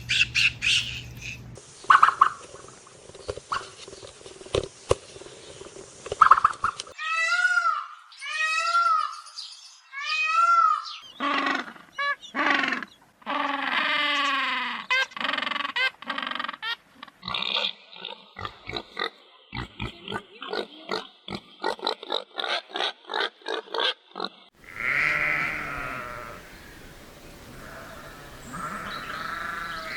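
A string of short farm-animal clips cut one after another, each with a different run of animal calls. They go from evenly spaced arched calls, to denser lower calls, to a fast run of short calls, to a few longer held calls near the end.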